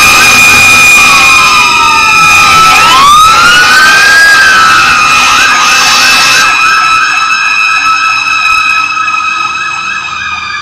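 Emergency sirens of a responding fire engine and sheriff's deputy vehicle. A steady high tone is held throughout while a second siren wails slowly down and up, then switches about halfway through to a fast yelp of about three sweeps a second. The sirens grow fainter near the end as the vehicles pull away.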